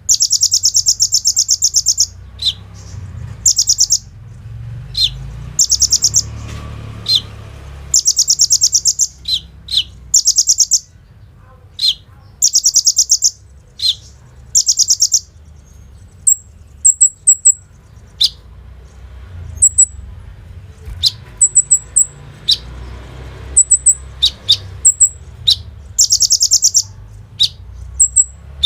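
Kolibri ninja (a sunbird) singing in full song: rapid, buzzy machine-gun trills a second or two long, repeated again and again, with single sharp notes between them. In the middle stretch the trills stop and short high chirps take over, and near the end the trills return.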